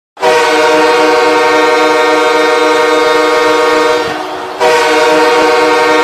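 Ice hockey goal horn blowing loudly: one long blast of about four seconds, a brief drop, then a second blast.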